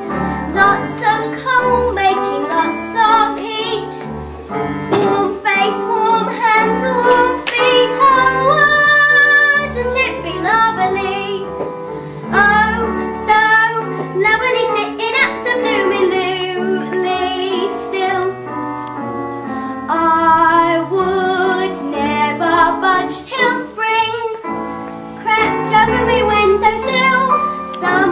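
A young girl singing a song over instrumental accompaniment that has a bass line and a steady beat.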